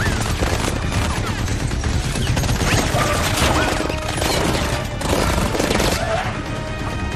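A burst of rapid gunfire from several firearms, with bullets striking cars, layered over an action film score.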